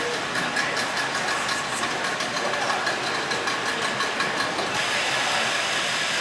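An engine running steadily with a rapid, even ticking, and a hiss that grows stronger about three-quarters of the way through.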